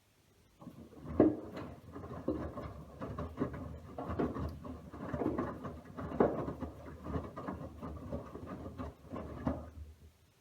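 Miele W1 WMV960 front-loading washing machine's drum turning a load of wet laundry, which tumbles and splashes in irregular soft thuds. The tumbling starts about half a second in and stops near the end as the drum pauses.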